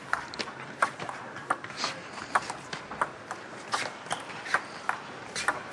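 Table tennis rally: the ball clicking sharply off bats and table in an even, unbroken run, about three clicks a second.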